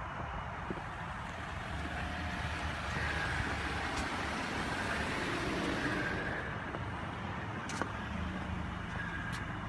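A road vehicle running, with a steady low rumble whose noise swells in the middle and eases off again. There are a couple of sharp clicks near the end.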